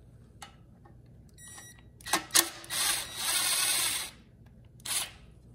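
Screwdriver backing out the screws of a generator's brush holder: a few sharp metal clicks, a brief squeak, then a rattling scrape of about a second and a half, and another click near the end.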